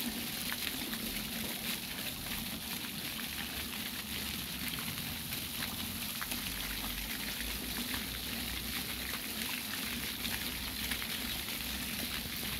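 Ground-level fountain jets spraying water up from the paving and splashing back onto the wet stones: a steady splashing hiss with a patter of drops.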